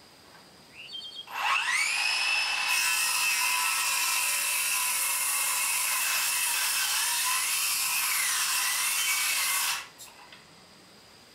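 Circular saw starting up with a rising whine, then cutting through a wooden board for about seven seconds, its pitch dipping slightly under load, before it stops suddenly near the end.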